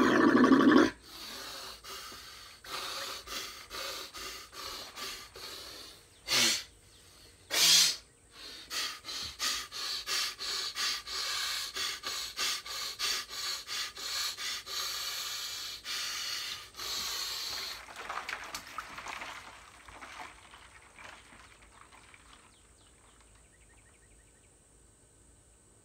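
A man breathing hard and fast through the shock of ice-cold water on his face: a loud breath at the start, then quick, rhythmic panting with two sharper, louder gasps about six and eight seconds in. It tapers off near the end as he holds his breath under the water. This is the involuntary urge to breathe that he says he struggles to control in cold water.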